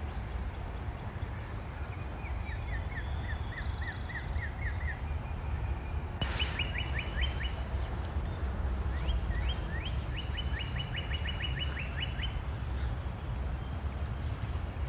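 Songbirds singing series of quick repeated chirps, the fastest run of about fifteen notes coming near the two-thirds mark, over a steady low rumble. A brief knock about six seconds in.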